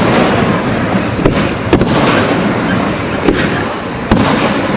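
Aerial fireworks shells bursting overhead: several sharp booms, the loudest about four seconds in, over a continuous wash of noise.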